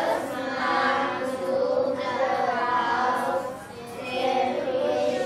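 A class of young children reading an English passage aloud together in unison, phrase by phrase, with a short pause between phrases about four seconds in.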